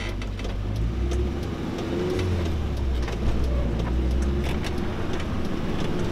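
Renault Trafic van's 2165cc four-cylinder engine heard from inside the cab, pulling away and picking up speed, getting louder after about a second, with scattered light clicks and rattles.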